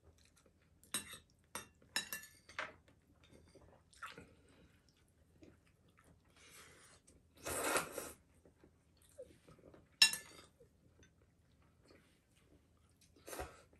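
Chopsticks and tableware clicking and clinking against bowls and plates while eating: scattered light taps, with one sharp clink about ten seconds in and a longer burst of noise a little past halfway.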